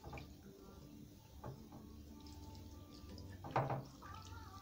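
Faint splashing and dripping of water from a tap as hands are washed over a plastic basin, with a brief voice sound about three and a half seconds in.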